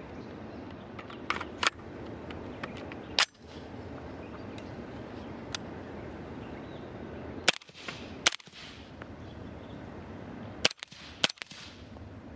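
Suppressed AR-style rifle firing five shots: one about three seconds in, two quick pairs later, each a sharp crack. A few lighter clicks come before the first shot.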